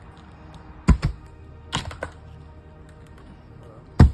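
Five sharp knocks, the first four in two quick pairs about a second in and near the middle, the loudest one near the end, over faint background music.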